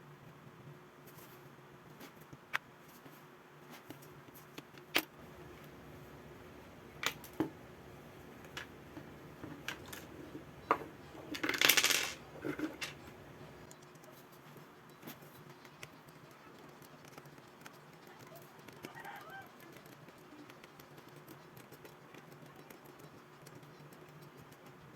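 Scattered small clicks and taps, like tools and plastic or metal phone parts being handled during a Realme C2 screen replacement, over a steady low hum. A short, harsh, noisy burst a little before halfway is the loudest sound.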